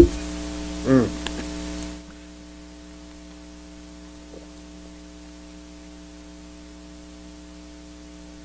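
Steady electrical mains hum with its stack of overtones, from the recording setup. There is a short vocal sound about a second in. At about two seconds the background noise drops, leaving only the hum and a faint hiss.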